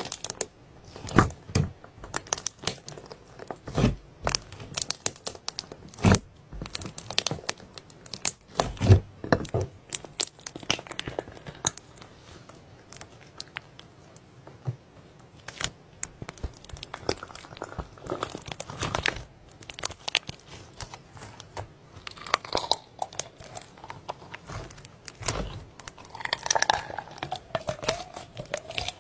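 Clear slime packed with small beads being squeezed, poked and stretched by hand: irregular crackling, crunching and popping clicks, louder in the first half. A brief wavering squeak of the stretched slime comes near the end.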